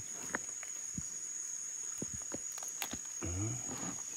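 Crickets or other night insects keep up one steady, high-pitched drone. A few light clicks and knocks sound over it.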